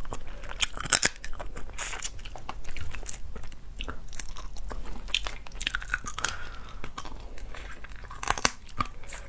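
Close-miked eating of cooked shellfish meat: wet chewing and biting, broken by irregular sharp crunches and clicks, the loudest about a second in and near the end.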